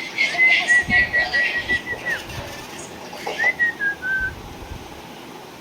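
Whistling: a quick run of short high notes on one pitch that ends in a downward slide, then a phrase of four notes stepping down in pitch, with breathy hiss between the notes.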